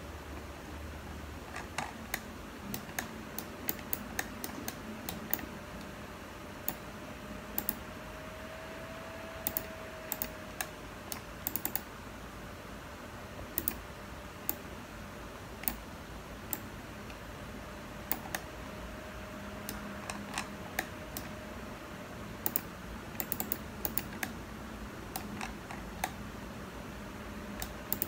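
Laptop keyboard keys tapped irregularly, single clicks and quick little clusters, over a faint steady hum.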